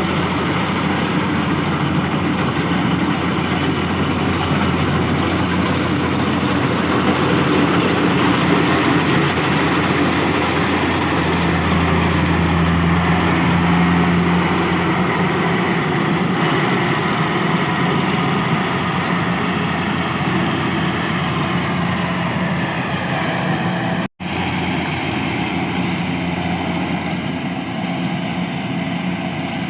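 Kubota DC70 combine harvester's diesel engine running steadily. The sound cuts out for an instant about three quarters of the way through, then the engine carries on.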